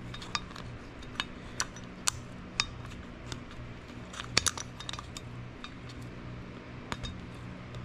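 Small metal parts clicking and clinking as a valve retainer and valve locks are worked onto a valve stem in a spring height checker: a dozen or so sharp, irregular ticks, two close together about four and a half seconds in. A steady low hum runs underneath.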